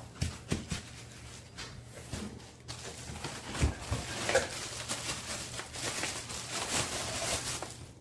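Handling noise from unpacking: plastic packaging rustling and crinkling, with irregular light knocks and clicks of parts and cardboard being moved.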